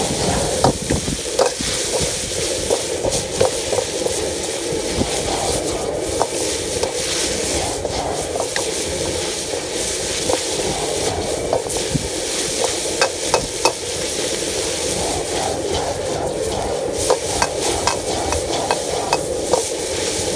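Chicken strips sizzling and frying in a carbon steel wok while a metal Chinese ladle stirs them. The ladle scrapes and clanks against the wok in irregular sharp knocks, in a few quick runs.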